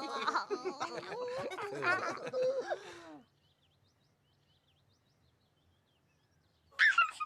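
Several high-pitched character voices giggling and babbling over one another for about three seconds, then near silence, then a short high-pitched vocal call just before the end.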